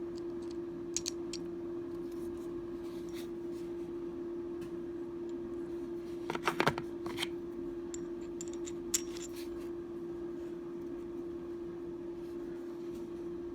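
Light clicks and taps of metal screw extractor and drill bits being handled, with a cluster of clicks about six to seven seconds in and a single sharp click about nine seconds in, over a steady hum.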